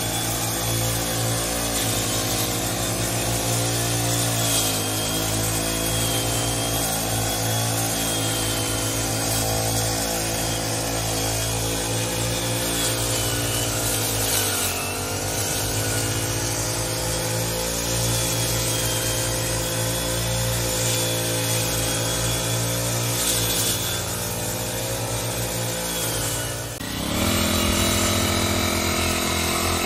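ChuangChao backpack brush cutters running at high speed while cutting tall grass. The engine note dips briefly in pitch several times and recovers, and near the end the sound changes abruptly to another pair of running cutters.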